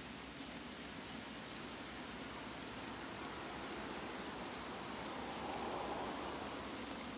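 Steady outdoor background hiss, swelling slightly about five to six seconds in.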